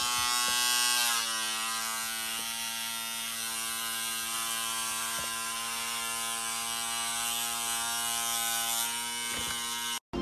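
Electric hair clipper running with a steady buzz. Its pitch drops slightly about a second in, and it cuts off suddenly near the end.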